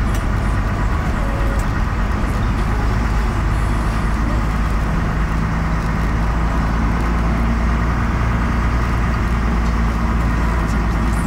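Vehicle driving on a gravel road, heard from inside the cabin: a steady low engine hum with tyre noise.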